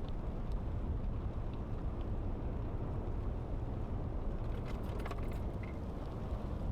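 Steady low rumble of wind buffeting the microphone, with a few faint clicks about five seconds in.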